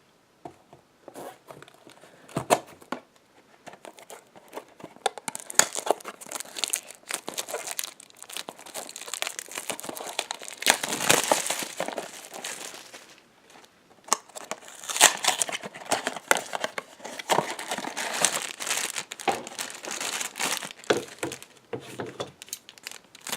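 A Funko Mystery Minis blind box being handled and opened, with its packaging crinkling and tearing. It starts with light handling clicks, then comes dense crinkling with a short pause partway through.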